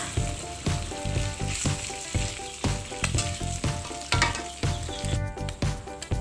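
Torn chunks of pindang tongkol (salted mackerel tuna) frying in hot oil in a wok, sizzling steadily.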